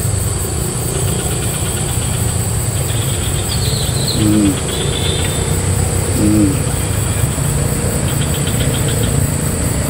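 Outdoor ambience at the water's edge: a steady low rumble under a continuous high-pitched insect drone, with scattered short bird chirps and two brief low hums about four and six seconds in.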